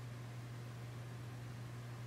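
Steady low hum over a constant hiss, unchanging throughout.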